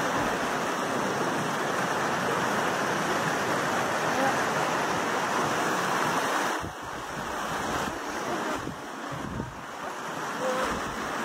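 Steady rushing noise of wind or falling water, dropping in level about two-thirds of the way through. Uneven gusts of wind on the microphone follow.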